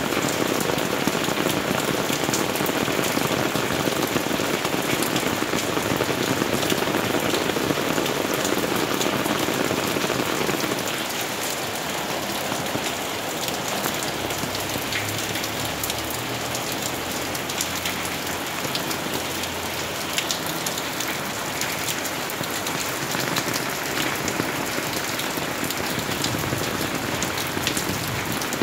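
Heavy rain falling on garden plants, grass and stone paving: a steady hiss with scattered individual drops, easing slightly about ten seconds in.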